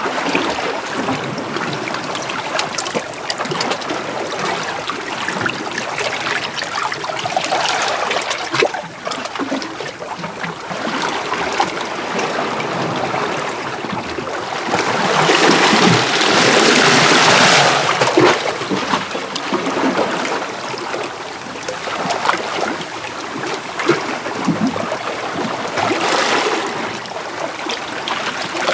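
Small sea waves washing in and out over shoreline rocks: continuous water noise with many small splashes, and one louder wash for a few seconds a little past halfway.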